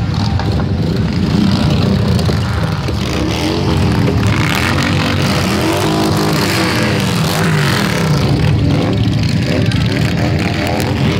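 A procession of cruiser and touring motorcycles riding past one after another, their engines running in an overlapping drone, with revs rising and falling as the bikes go by.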